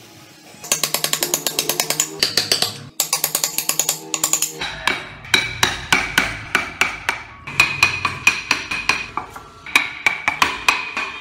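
A steel carving chisel being struck rapidly, several sharp taps a second, each with a short ringing note, as it cuts into a wooden block. The run of taps stops and starts again abruptly a few times.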